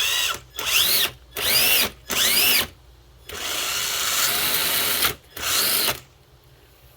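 Traxxas TRX-4 RC crawler's electric motor and gear train whining under throttle, in short bursts whose pitch climbs and drops, with one steadier run of nearly two seconds partway through. This is the loud drivetrain noise being traced to the pinion gear mesh, which the owner wonders may come from over-torqued bolts.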